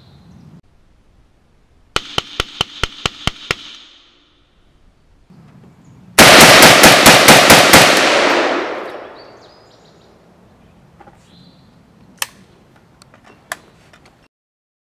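Century Arms RAS-47 AK-pattern rifle in 7.62×39 fired in quick semi-automatic strings: about nine shots in a second and a half, then after a pause a louder string of about a dozen shots whose echo rings off. Two sharp clicks near the end.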